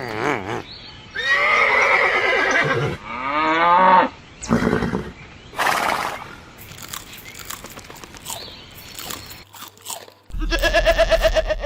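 A series of farm-animal calls, pitched and wavering, one after another with gaps; near the end one call is broken into fast pulses.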